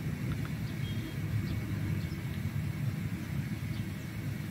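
Low, steady outdoor background rumble with no speech.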